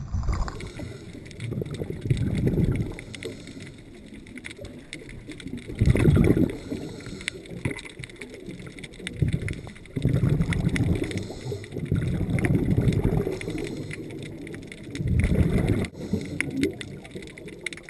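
A scuba diver breathing through a regulator, heard from an underwater camera: the exhaled bubbles rumble in bursts lasting a second or two, every few seconds, over a steady faint crackle of small clicks.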